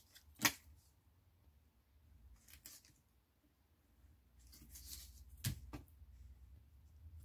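Double-sided craft tape being laid around a card aperture: faint rustling of tape and paper, with a few sharp clicks, the loudest about half a second in and two more close together a little after five seconds.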